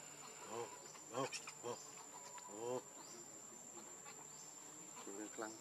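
A steady high-pitched insect drone, over which the young macaques give short squeaky cries, several in the first three seconds and again near the end.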